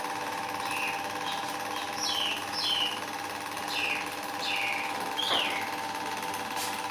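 A steady mechanical hum runs throughout, with a string of short, high, downward-sliding bird chirps over it.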